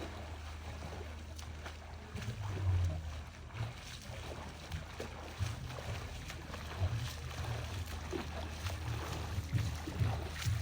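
A low steady engine-like drone with scattered knocks and bumps.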